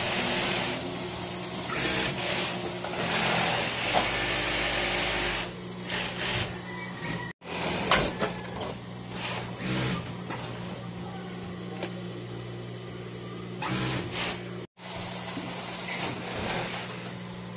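Industrial sewing machine running: a steady motor hum with stretches of fast stitching noise that swell and fall away. The sound cuts out abruptly twice for an instant.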